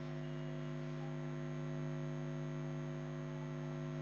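Steady electrical hum: a low, even buzz with a stack of overtones that does not change.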